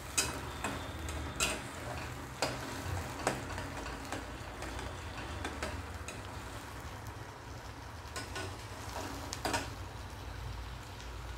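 Chilli paste sizzling as it fries in oil in a stainless steel kadhai, stirred with a steel spatula that scrapes and clicks against the pan. The clicks come in a few spaced strokes in the first three seconds and twice more near the end. The paste is kept moving so it does not stick to the bottom.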